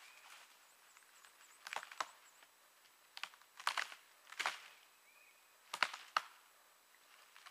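A hand tool chopping and breaking into a dead fallen log: about seven sharp woody blows at uneven intervals, some coming in quick pairs.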